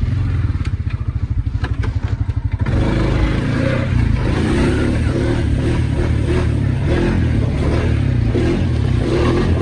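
ATV engine chugging low with a few knocks and clatters, then opened up about two and a half seconds in and running hard under throttle as the wheels fight for traction in deep mud.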